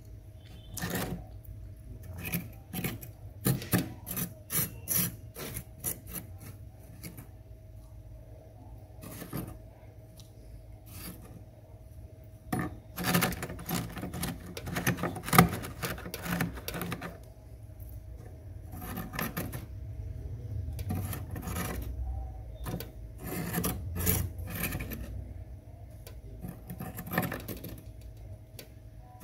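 Metal fork scraping thick freezer frost, in bunches of short scratching strokes with pauses between.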